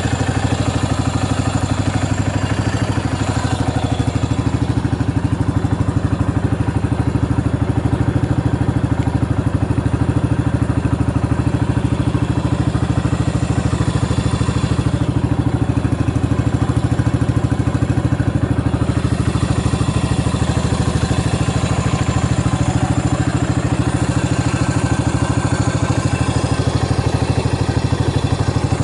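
Yamaha SR400's single-cylinder four-stroke engine idling steadily, with no abnormal noises according to the seller.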